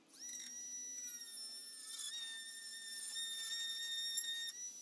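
Dremel rotary tool with a cutoff disc running at a steady high whine as it cuts the sheet steel of a VW Beetle's front apron. It spins up quickly at the start, dips slightly in pitch a couple of times under the cut, and spins down with a falling whine at the end.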